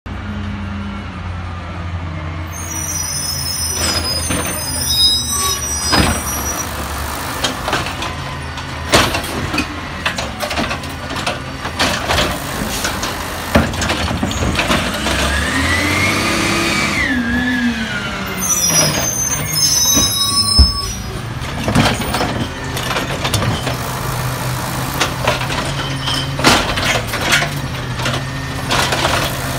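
Natural-gas Peterbilt 320 automated side-loader garbage truck running, with air brakes hissing as it stops beside a cart. About halfway through, a whine rises and falls in pitch as the hydraulic arm works, with a few knocks from the cart being picked up and emptied, and a second air hiss.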